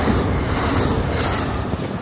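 Train passing by with a steady low rumble of wheels on rail, easing slightly near the end.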